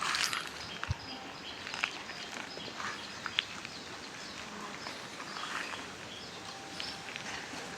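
Footsteps on dry leaves: a rustling crunch at the start, then a few scattered crackles. Short, repeated high chirps from birds or insects run quietly underneath.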